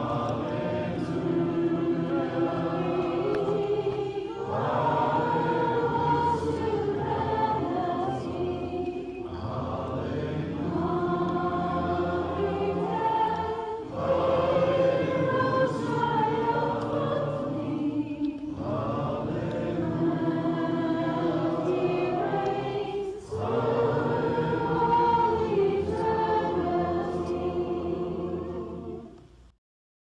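Church congregation singing a hymn of invitation a cappella, many voices together in phrases a few seconds long with short breaks between. The singing cuts off suddenly near the end.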